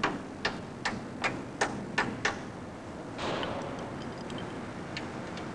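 Sharp metallic clicks, about three a second for a couple of seconds, from a hand tool tightening the bolt of a masonry expansion anchor. A short scraping rush follows about three seconds in, then a few faint ticks.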